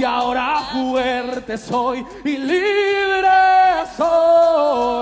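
Worship song: one voice singing long held notes, with little instrumental backing.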